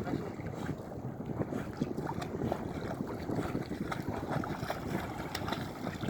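Shallow sea water splashing and lapping in small irregular bursts, with wind buffeting the microphone.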